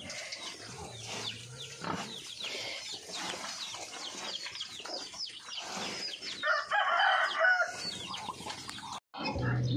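Chickens clucking and chirping with many short, high, falling calls, and a louder call like a rooster's crow about seven seconds in. The sound cuts off abruptly near the end.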